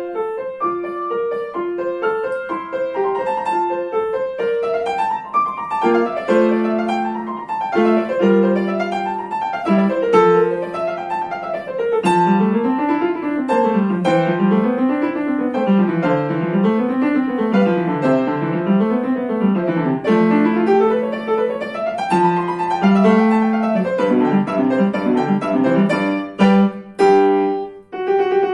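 Upright piano playing a classical-style piece, with fast runs rising and falling over and over through the middle of the passage. Two brief breaks in the playing come near the end.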